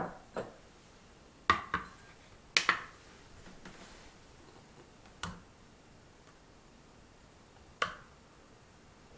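Glass mixing bowl on a digital kitchen scale clinking and tapping as whipped cream is spooned into it: about eight short, sharp knocks, some in quick pairs, with a soft scrape about halfway through.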